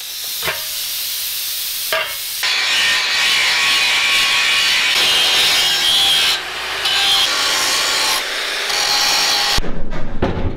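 Power tools cutting and grinding steel plate: a harsh, steady hiss in several short stretches. About 9.5 s in it breaks off into a lower, quieter rumble.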